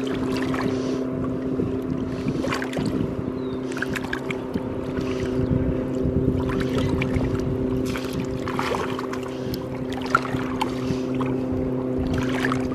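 An engine runs steadily at an even pitch, with water splashing irregularly as a large sturgeon is held upright in shallow water.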